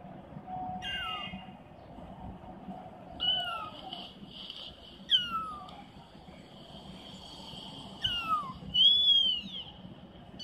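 High-pitched kitten meows: about five short calls, each falling in pitch, spaced a few seconds apart, with the last two close together near the end.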